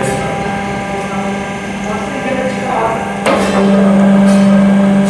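Hydraulic paper plate making machine: its hydraulic pump runs with a steady hum while the stacked paper pieces rustle and clatter as they are set into the die. About three seconds in, the hum jumps louder as the pump comes under load, driving the press die.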